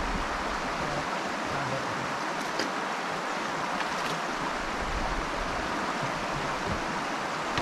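Steady rush of river water flowing past, with a couple of faint clicks in the middle.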